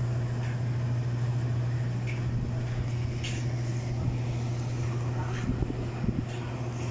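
Steady low hum from a floor-standing air conditioner, with a few faint clicks and scrapes of a plastic spoon stirring shaved ice in a metal bowl.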